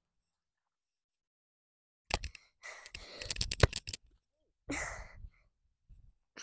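Two seconds of dead silence, then a cluster of sharp clicks and knocks with rustling close to the microphone, the sharpest about three and a half seconds in, followed by a short breathy hiss.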